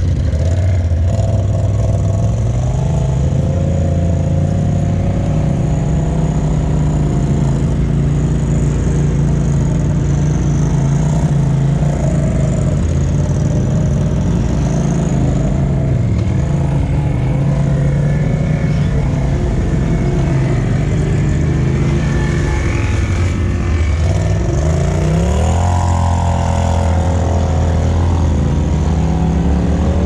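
Polaris RZR side-by-side's engine running steadily at low trail speed. Late on, the revs climb briefly, then settle.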